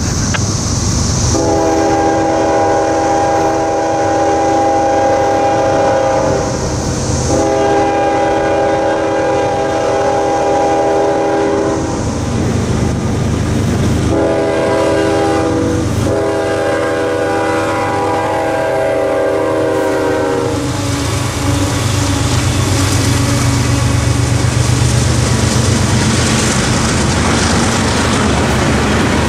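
A freight locomotive's horn sounding the grade-crossing signal, two long blasts, a short one and a final long one, over the ringing electronic bells of the crossing signals. After the horn stops, about two-thirds of the way in, the freight train rolls past the crossing, its wheels clicking over the rails.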